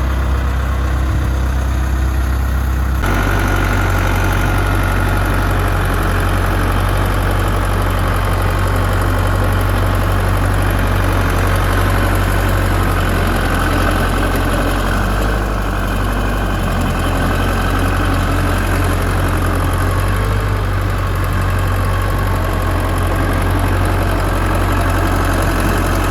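Mauldin 1750-C asphalt paver's diesel engine running steadily. About three seconds in the sound changes abruptly, growing fuller, with a steady whine over the engine.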